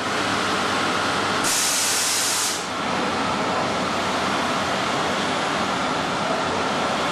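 Steady machine noise, an even whir with a faint high whine running through it, and a burst of hiss lasting about a second, starting a second and a half in.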